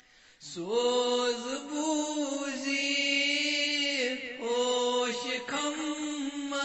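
A man chanting a Kashmiri Sufi qalaam unaccompanied, in long held notes that bend slightly in pitch. The voice comes in about half a second in, after a short breath.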